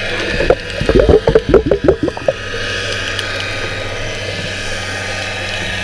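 Water noise heard with the camera underwater in choppy sea, a steady hum and wash. From about half a second to two seconds in comes a quick run of about ten bubbling, gurgling pulses.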